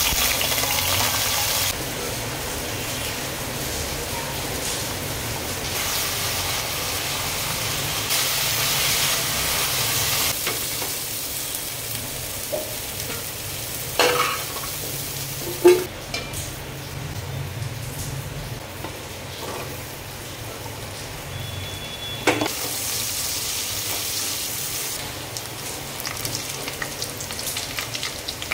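Cauliflower and potato pieces sizzling steadily as they fry in oil in a metal pot, with a few sharp knocks of the stirring spatula against the pot about halfway through and again later. Near the end, sliced onions sizzle in the oil.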